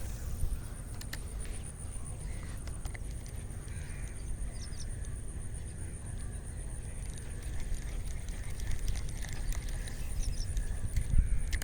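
Outdoor ambience: a low, uneven rumble of wind on the microphone, with a few faint bird calls.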